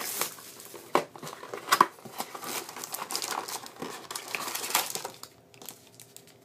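Plastic shrink wrap crinkling and tearing as it is stripped off a sealed box of hockey cards, with sharp crackles. It quietens about five seconds in as the cardboard flap is opened and the wrapped packs are lifted out.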